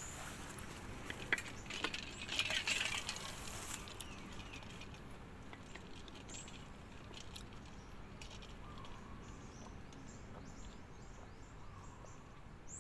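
A short burst of metallic clinking and rattling about one to four seconds in. After it comes a steady outdoor background with faint small-bird chirps.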